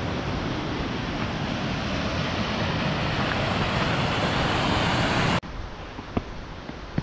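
Small waterfall rushing down beside stone trail steps, a steady loud rush of water that cuts off suddenly about five seconds in. After that a quieter background with a few faint footsteps on the stone steps.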